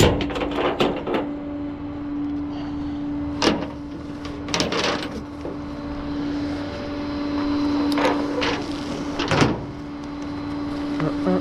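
Tow truck running with a steady hum, with several sharp clanks and rattles scattered through.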